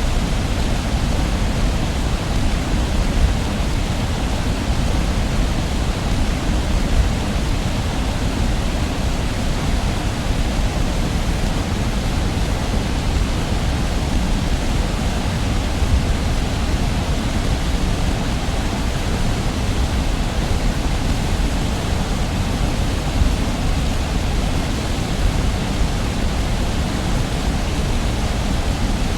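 Heavy waterfall heard from a distance: a steady, unbroken rush of falling water, strongest in its deep low rumble.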